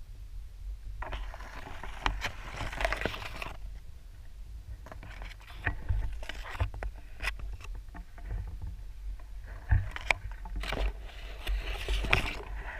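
Underwater sound picked up by a submerged camera in a rock pool: a steady muffled low rumble, with three spells of crackling, clicking and scraping as the camera moves through the water.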